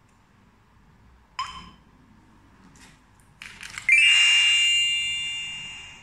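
Daytech TA03 alarm control panel giving a short beep about a second and a half in, then after a few faint clicks a loud ringing chime that fades away over about two seconds, the panel's tone as an RFID key tag is added.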